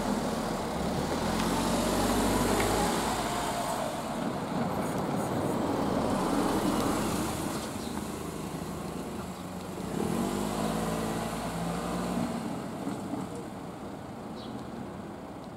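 Motor vehicle engines running and passing, with the engine pitch sweeping as they pull away, about two seconds in and again about ten seconds in, then fading.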